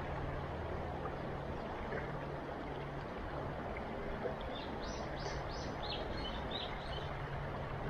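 Steady rushing of a river's current, with a bird giving a quick run of about seven short high chirps about five seconds in.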